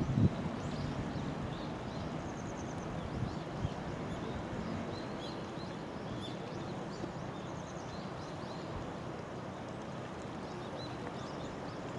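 Steady rush of a shallow river running over a rocky bed, with small birds chirping now and then. A brief thump sounds just at the start.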